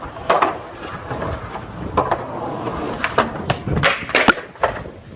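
A rough rolling noise with a run of sharp knocks and thuds, the loudest about four seconds in, as in a crash or wipeout.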